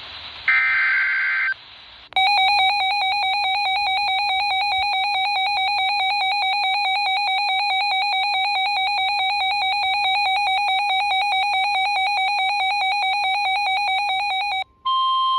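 Electronic alerting tones from a NOAA Weather Radio receiver. First comes a short buzzy burst of SAME digital header data, then the radio's loud warbling alarm for about twelve seconds, then, near the end, the broadcast's steady 1050 Hz Weather Alert Tone, announcing a new severe thunderstorm watch.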